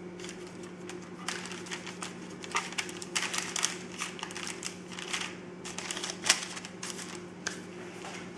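Baking paper crinkling and crackling as raw filled pastry half-moons are handled and set down on a paper-lined plate, in an irregular string of short crackles with the sharpest about six seconds in. A steady low hum runs underneath.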